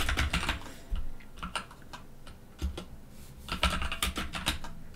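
Typing on a computer keyboard: quick runs of key clicks in two bursts, one at the start and another about three and a half seconds in, with a few single keystrokes between.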